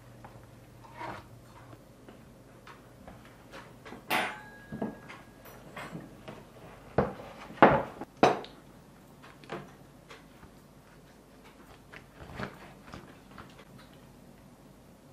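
Knife and fork carving a stuffed roast chicken on a wooden board: scattered clicks and knocks of the metal against the board, the three loudest close together about seven to eight and a half seconds in.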